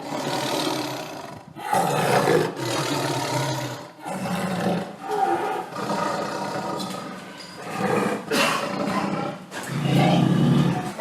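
Tiger roaring and growling in a run of loud calls, one after another, each lasting a second or two.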